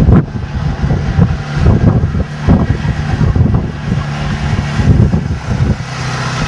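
Wind buffeting the microphone in repeated gusts, over an engine running steadily underneath; the engine's hum drops slightly in pitch near the end.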